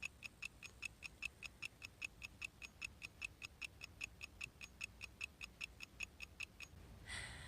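Steady, fast ticking, about four even ticks a second, like a clock or mechanical timer, stopping shortly before the end.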